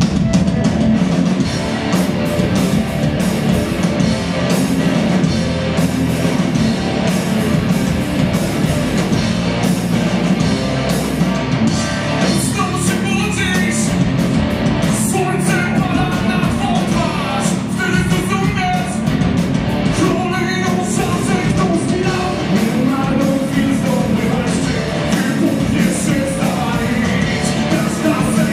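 Rock band playing live and loud: electric guitars, bass and drums, with a lead vocal line coming in about twelve seconds in.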